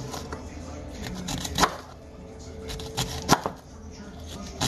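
Paring knife cutting slits into an onion on a cutting board: a few separate sharp knocks of the blade, the loudest about three seconds in.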